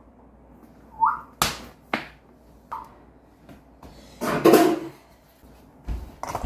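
A short rising whistle-like squeak about a second in, a vocal tic, followed by sharp knocks and a loud noisy burst a little past four seconds.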